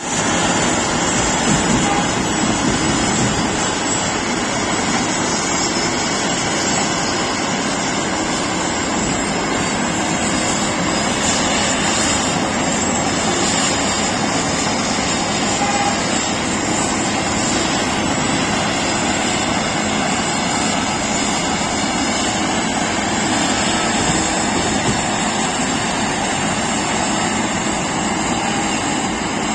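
Heavy road-resurfacing machinery running, a loud, steady, unbroken mechanical noise.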